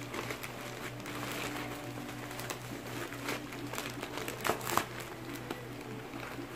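A plastic courier pouch rustling and crinkling as it is pulled open by hand, with a few sharper crackles a little after the middle, over a steady low hum.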